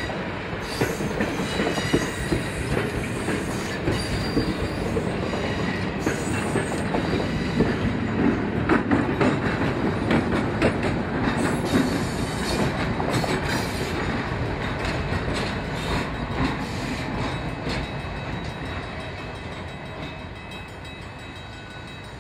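Train cars rolling past, wheels clicking over rail joints with a faint high wheel squeal. The sound fades steadily over the last several seconds as the train moves away.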